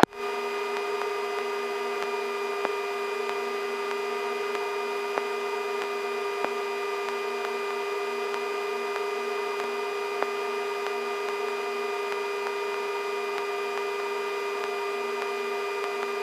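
Sikorsky S-64 Skycrane twin-turbine helicopter in flight, heard in the cockpit as a constant hum at one steady pitch with a few faint clicks, during its descent to land.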